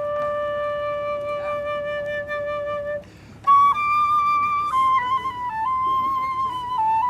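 A single unaccompanied woodwind instrument playing a slow melody. It holds one long note, breaks for a breath about three seconds in, then plays a higher phrase of a few notes stepping downward.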